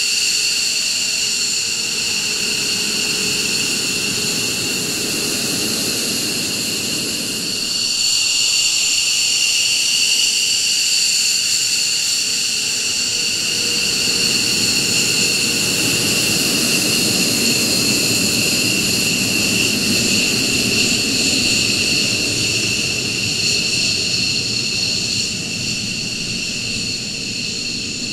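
McDonnell Douglas F-15 Eagle fighter jets taxiing past, their twin turbofan engines whining with several steady high tones over a low rumble. The sound dips briefly and swells again from about eight seconds in as another jet passes.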